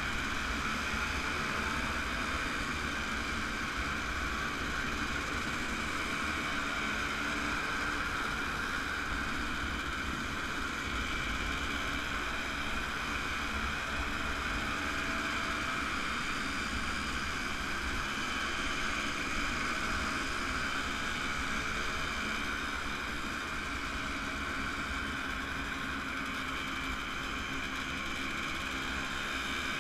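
Vintage motorcycle engine running steadily under way, mixed with wind and road rush on the microphone.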